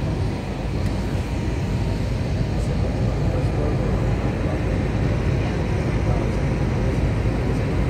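Steady cabin noise of a jet airliner on approach, a low rumble of engines and rushing air heard at a window seat.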